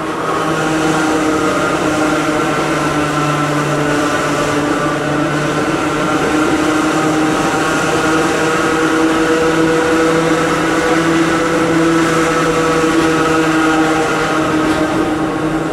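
Hakone Tozan Railway Moha 1-type electric car running downhill, heard from inside near the gangway: the steady whine of its nose-suspended (tsurikake) traction motors and gears, several held tones over running noise.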